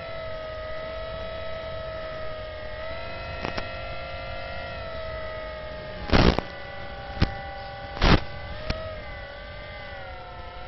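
Steady whine of a radio-controlled airplane's electric motor and propeller heard over the FPV link's onboard audio, dipping slightly in pitch near the end. About 6 seconds in come four sharp bursts of static from interference on the video link.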